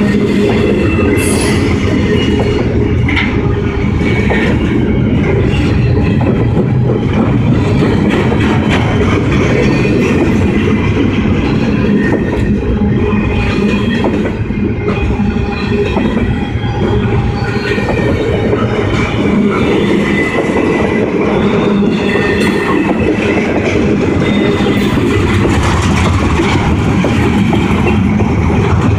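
Double-stack container cars of a long freight train rolling past, a steady loud rumble of steel wheels on rail with short high wheel squeals now and then.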